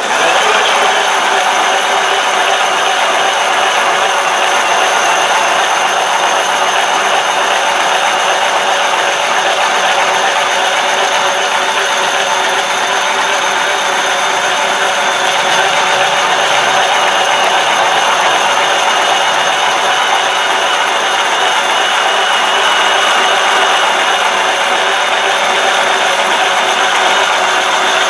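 Hardin Triad planetary concrete wet polisher switched on and running steadily, its 100-grit diamond heads grinding a wet concrete countertop: a steady motor whine over a loud grinding hiss.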